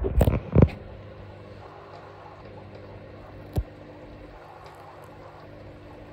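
Steady low hum with a water-like hiss from running aquarium equipment, with a cluster of loud knocks in the first second and a single sharp click about three and a half seconds in.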